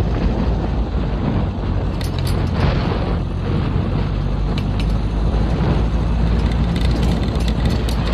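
Beach buggy engine running as it drives, a steady low drone under a noisy rumble, with a few sharp knocks or rattles about two seconds in and again near the end.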